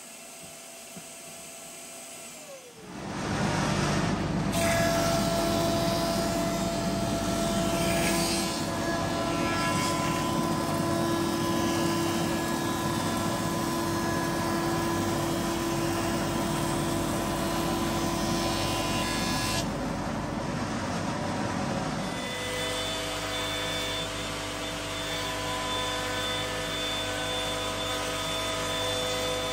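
Woodworking machines cutting a hardwood board: a planer-thicknesser runs loudly for most of the stretch, then, about two-thirds through, it gives way to a router in a Trend router table cutting a 45-degree chamfer, each with its dust extractor running. The first few seconds are quieter.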